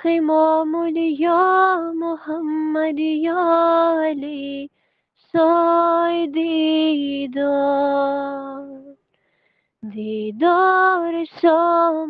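A solo voice singing a munojot, a Persian devotional supplication, unaccompanied: long held phrases broken by two short silences, about five seconds in and again near nine seconds.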